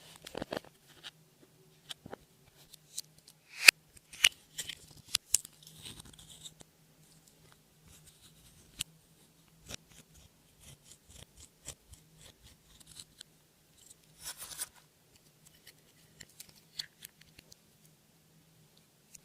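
Clear slime being worked by hand with makeup and glitter mixed in: irregular sharp clicks and short crackles, with a busy stretch in the first few seconds and another cluster about three quarters of the way through.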